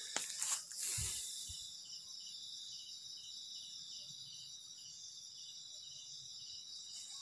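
Night insects, crickets and similar, keeping up a steady high-pitched chirring, with one insect chirping in short regular pulses about three times a second. There are a few short knocks in the first second and a half.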